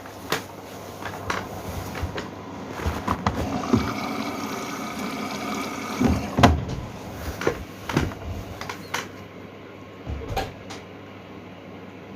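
Washing machine running, with a steady hum and irregular knocks and clunks through the wash.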